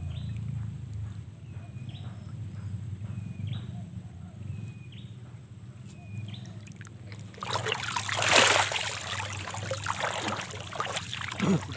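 Water sloshing and splashing, in a loud surge that peaks about eight seconds in, over a steady low hum. Several faint short chirps come before it.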